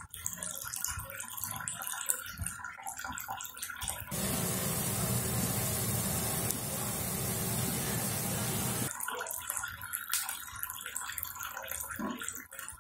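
Pot of beef ribs boiling hard on a gas stove: a fine crackle of bubbling. About four seconds in it switches abruptly to a louder, even rush of rolling boil for about five seconds, then the quieter bubbling returns.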